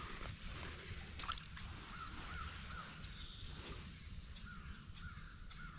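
A bird calling faintly in short repeated notes, one run of three about two seconds in and another run of several near the end, over a steady low rumble.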